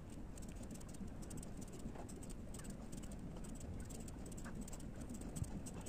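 Faint graphite pencil scratching on paper in a rapid run of short strokes along a ruler edge, drawing section hatching lines.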